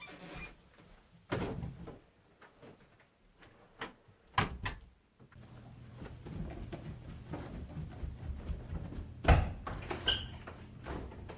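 A few scattered knocks and thumps of a door being opened and handled, with a steady low hum starting about five seconds in.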